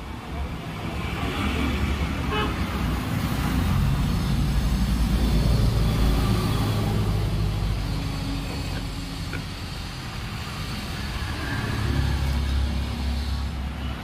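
Motor traffic passing: a low engine rumble that swells and fades twice, with a horn sounding.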